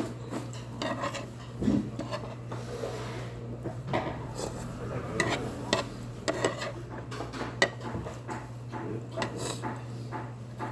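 Metal chopsticks clicking and scraping against a stone pot and small side-dish bowls: a scattered string of sharp clicks over a steady low hum.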